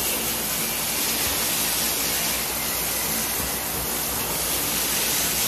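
Water spraying from a hose in a steady rushing hiss, washing out a dog kennel.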